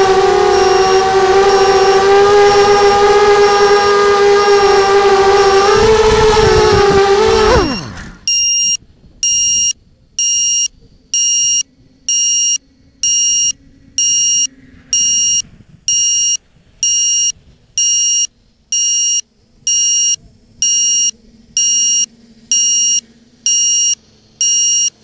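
QAV250 mini quadcopter's brushless motors whining steadily, then spooling down with a sharply falling pitch about eight seconds in as the quad comes to rest on the ground. After that, a high electronic beep repeats at an even rate of a little over one a second: the grounded quad's alarm buzzer.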